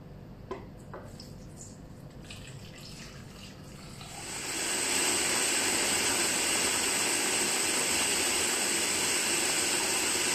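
Water poured into a food processor bowl of dates. Then, about four seconds in, the food processor's motor starts and runs steadily at full speed with a high whine, chopping the dates, hot water and espresso powder into a paste.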